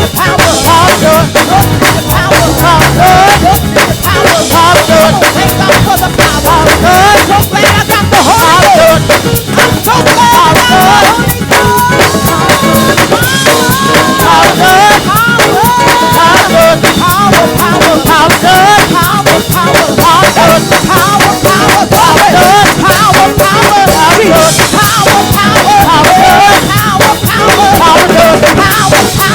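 Live gospel praise band playing loudly: singers over a driving drum kit and band.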